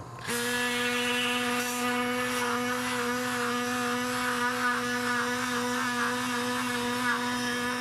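Powered surgical bone saw cutting through the femoral neck to remove the arthritic femoral head. A steady motor whine starts a moment in, its pitch wavering slightly midway through the cut.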